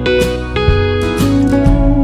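Instrumental break of a country song: strummed guitar with sustained steel guitar notes.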